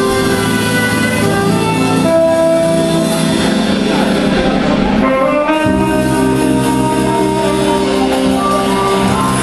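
Live band playing instrumental music: saxophone over a Pearl drum kit and keyboards. About halfway through, low held notes come in under the horn.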